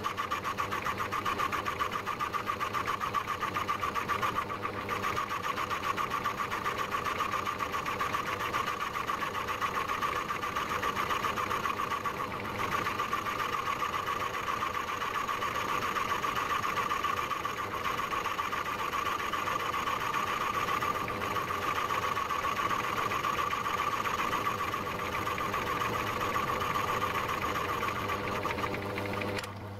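Myford Tri-Leva lathe running steadily under power, with a boring head in the chuck skimming the boss on a small lathe's casting; a continuous machine hum with one strong steady tone.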